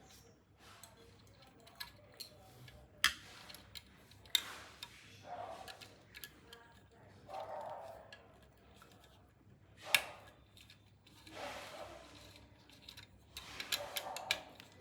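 Irregular sharp clicks and taps with short scraping and rustling, as of hand tools and small parts being handled during repair work; the loudest clicks come about three seconds in, around ten seconds in, and in a quick cluster near the end.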